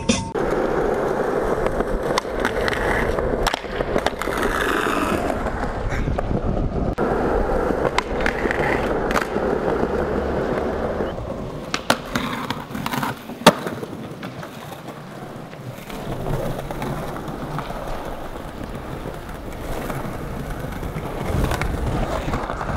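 Skateboard wheels rolling over smooth pavement and the trucks grinding along a concrete ledge, with a few sharp clacks of the board popping and landing about twelve and thirteen and a half seconds in.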